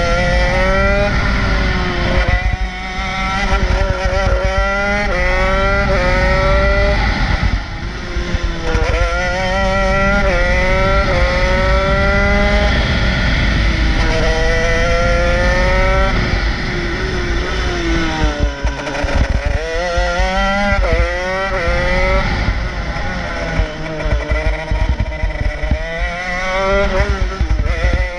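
Honda CR125 two-stroke single-cylinder engine of a shifter kart, heard from on board, revving hard through the gears: its pitch climbs again and again, dropping back at each gear change or when the throttle comes off for a corner.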